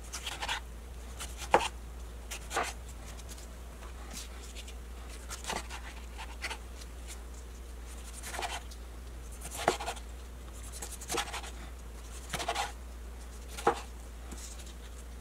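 Kitchen knife slicing through tomatoes and knocking on a wooden cutting board: separate sharp knocks at an uneven pace, roughly one a second.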